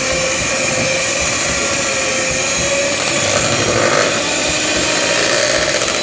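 Electric hand mixer running steadily, its beaters whirring through cake batter in a bowl, with a steady motor hum.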